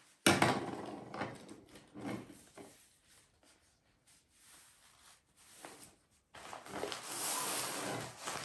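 Fabric bags being handled: rustling of a cotton tote bag as items are taken out, fading to quiet handling, then from about six seconds in, steady rustling of a black drawstring bag as hands rummage inside it.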